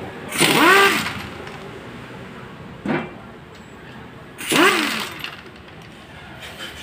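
Electric impact wrench run in three short bursts to loosen motorcycle engine case bolts. Each burst is a motor whine that rises and falls over a hammering clatter; the first, about a second in, is the loudest, and the second, near three seconds, is the shortest.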